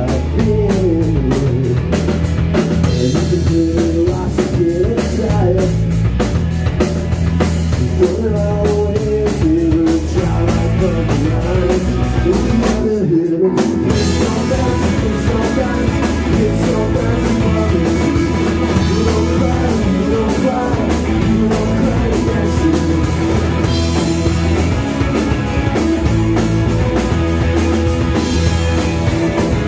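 A rock band playing live, with drum kit and electric guitar, that stops for a moment about halfway through and then comes back in.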